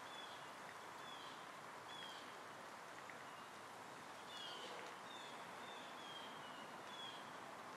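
Faint outdoor ambience: a steady hiss, with a small bird giving short, high chirps that slide down in pitch, about one a second, with a pause around the middle.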